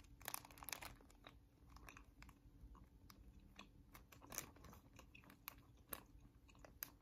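Quiet close-up biting and chewing of a Smucker's Uncrustables peanut butter and strawberry jam sandwich: a bite near the start, then chewing with many small scattered mouth clicks.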